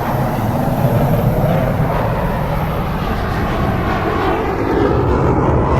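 Airliner jet engine noise, a loud, steady roar of an aircraft taking off or landing close by.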